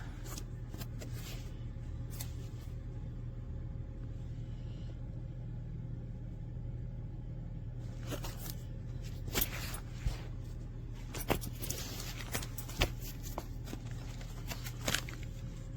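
Handling noise from a Kurgo Impact dog car harness: scattered sharp clicks and short scrapes from its straps and metal buckles being turned over, mostly in the second half, over a steady low hum.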